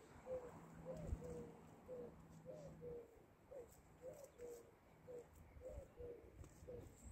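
Faint pigeon or dove cooing: a run of soft repeated notes, about two a second, alternating flat and hooked. A soft low knock about a second in.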